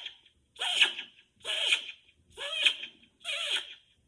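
A man's voice making a repeated bird-calling sound: short, hoarse vocal calls about one a second, each sliding down in pitch, the noise he uses to call the birds he feeds.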